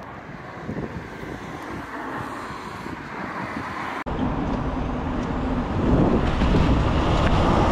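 Road traffic noise, then after an abrupt cut an articulated lorry's engine running close by as it drives round a roundabout, getting louder about six seconds in.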